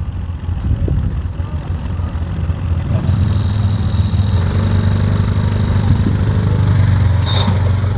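Side-by-side UTV engine running at low crawling speed on slickrock, growing louder about three seconds in. A faint high whine comes in for a couple of seconds, and there is a brief sharp sound near the end.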